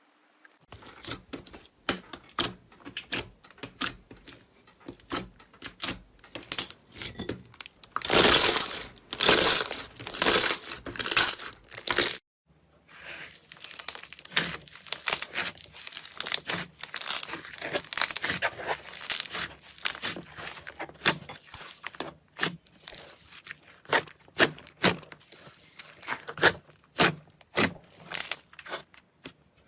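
Slime being squeezed and pressed by hand, giving off dense crackling and popping clicks. The sound stops briefly about twelve seconds in, then the crackling resumes.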